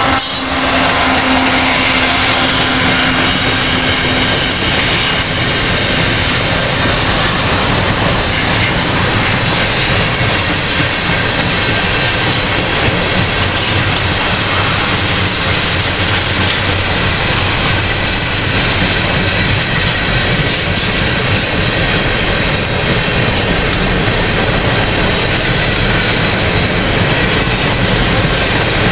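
Slow freight train of covered hopper cars rolling past, a steady roar of steel wheels on rail. A diesel locomotive's engine hum is heard near the start and fades away over the first several seconds as the locomotive moves off.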